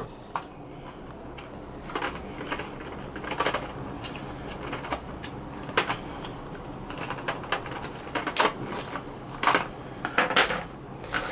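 Scattered, irregular clicks and light knocks of hand work on small hard parts as a small bolt is unscrewed.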